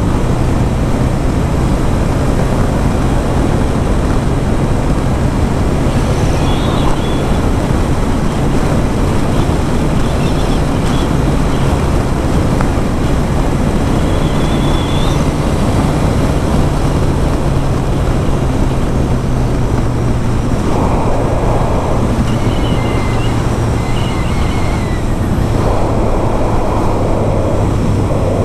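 Kawasaki Ninja motorcycle cruising at road speed: a steady engine hum under loud wind rushing over the camera microphone. The engine note drops a little about two-thirds of the way through and again near the end.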